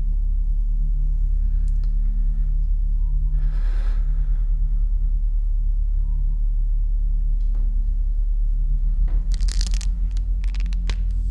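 A deep, steady rumbling drone, with a hissing swell about four seconds in and a quick run of crackling, crunching clicks near the end.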